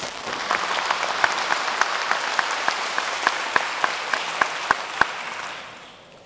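Audience applauding, with one person clapping close by at about three and a half claps a second; the applause fades away near the end.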